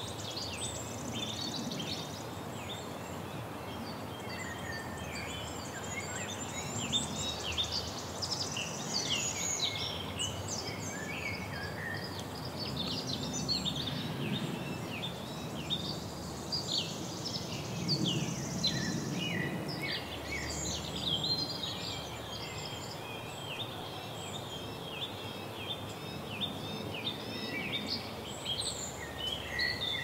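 Many small songbirds chirping and twittering, with short high calls overlapping throughout, over a steady outdoor background hiss. A low rumble swells up twice in the middle.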